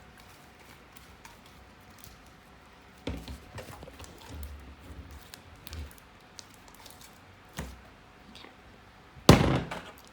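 Slime being handled: faint squishing, small clicks and soft thuds, with one loud thump about nine seconds in.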